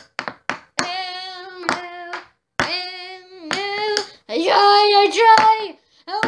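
A high-pitched voice singing wordless held notes in short phrases that slide up and down in pitch, broken by brief gaps and sharp percussive clicks.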